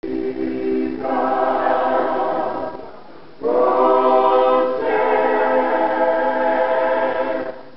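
Choir singing unaccompanied in held chords. It dips near three seconds in, comes back louder on a new held chord, and cuts off just before the end.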